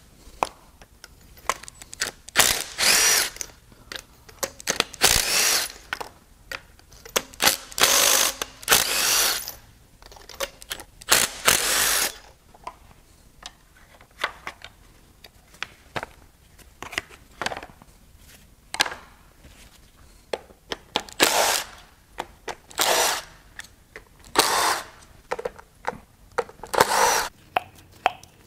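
Handheld power driver running in about nine short bursts, each half a second to a second long, backing out the ignition-coil bolts and spark plugs of a Ford 5.0 Coyote V8. Small clicks and clatter of parts and sockets fall between the bursts.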